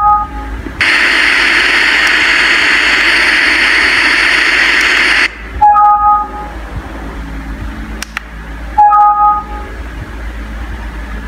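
Mini Bluetooth speaker sounding three short rising two-note prompt beeps as its mode button is pressed. After the first beep it puts out a loud steady static hiss for about four and a half seconds, typical of its FM radio mode with no station tuned, which cuts off sharply before the second beep.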